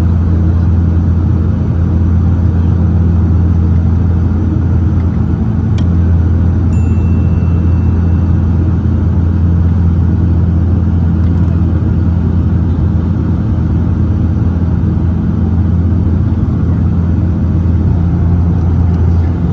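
Steady, loud drone of a Dash 8-400's turboprop engines and six-bladed propellers heard from inside the cabin: a deep, even hum from the propellers beating.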